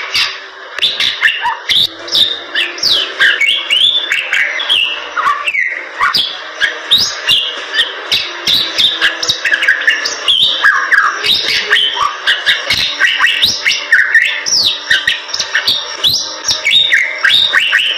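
Bali myna singing without pause: a fast, chattering stream of squeaky whistles, chirps and harsh notes that slide up and down in pitch.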